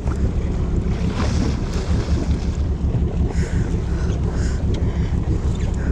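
Steady low drone of a charter boat's engine, with wind buffeting the microphone.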